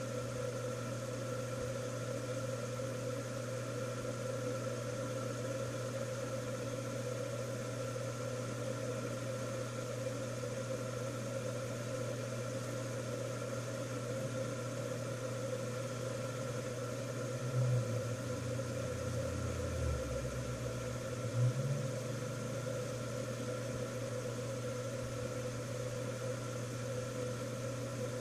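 Steady low mechanical hum, constant and even, with a couple of soft bumps a little past the middle.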